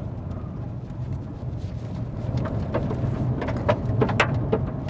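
Fiat Argo Trekking 1.3 FireFly driving on a gravel road: a steady low rumble of engine and tyres. From about halfway in there are scattered sharp clicks and knocks.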